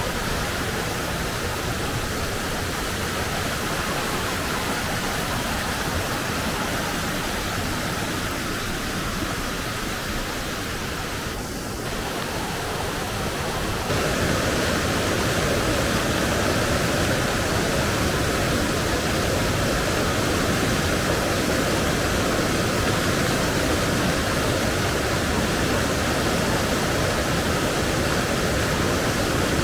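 Rain-swollen mountain river rushing in flood, a steady dense roar of water. About halfway through it suddenly becomes louder and fuller.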